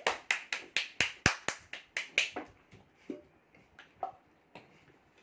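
A quick run of sharp hand claps, about four or five a second, for the first two and a half seconds, then a few scattered claps.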